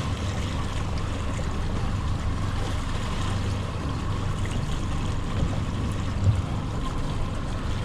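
Boat's outboard motor running steadily, with water rushing past the hull.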